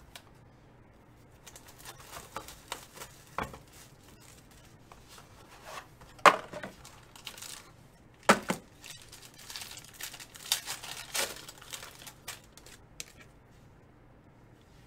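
Gold foil wrapper of a Panini Gold Standard basketball card pack being torn open and crinkled: scattered crackles, with two sharp louder ones about six and eight seconds in and a busy run of crinkling after them.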